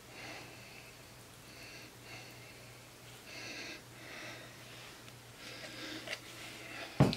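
Quiet breaths near the microphone, coming every second or so, over a low steady hum, with a short sharp click near the end.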